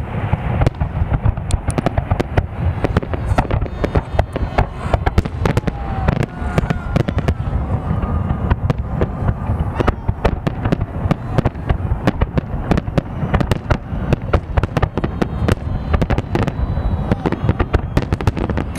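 Fireworks salute: a continuous barrage of rapid bangs and crackling with no letup.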